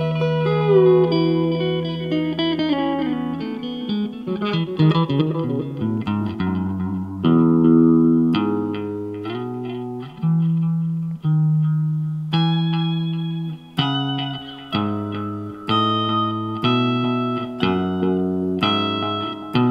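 Guitar played alone. A chord rings for the first few seconds, then comes a quick run of picked notes, then a string of chords struck about once a second and left to ring, the kind of sus2 and add9 voicings being taught.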